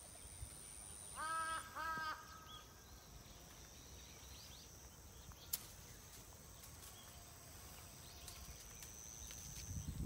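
A bird gives two harsh calls in quick succession, each rising then falling in pitch, about a second in and again a second later. A faint steady high whine runs underneath, and a single sharp click comes about halfway through.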